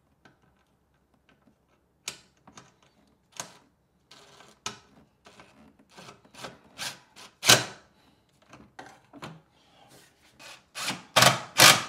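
Tool and hardware handling in a golf cart's plastic controller compartment: a cordless drill and impact driver, sockets and bolts knocking and scraping as mounting bolts are started by hand. An irregular run of clicks and scrapes, with a loud knock about seven and a half seconds in and a few louder knocks near the end.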